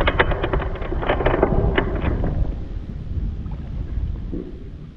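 Wind buffeting the microphone with a heavy low rumble, over a quick run of sharp clicks and knocks in the first two seconds. The rumble eases off toward the end.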